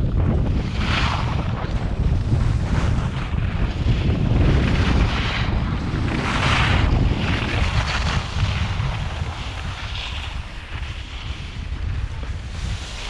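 Wind buffeting a GoPro's microphone while skiing downhill, with the hiss of skis carving turns on packed snow swelling every couple of seconds. The rush eases off in the second half as the skier slows.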